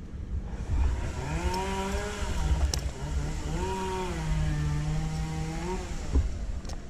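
Two-stroke chainsaw revved up, its pitch dipping and rising again, then held steady for a second or two before it drops away shortly before the end, over a constant low rumble.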